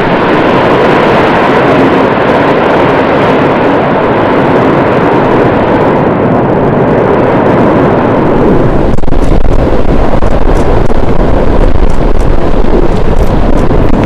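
Volcanic eruption: a loud, continuous rumbling roar of noise that grows louder and deeper about nine seconds in.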